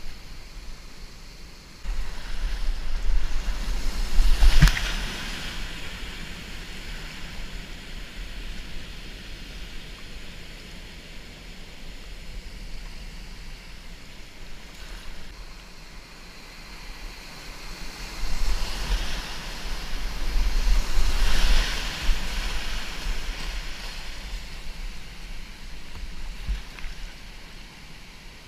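Whitewater rapids rushing around a kayak, heard close to the water. There are two louder surges of splashing with low rumbling on the microphone, about two to five seconds in and again from about eighteen to twenty-two seconds in. A sharp splash comes just under five seconds in.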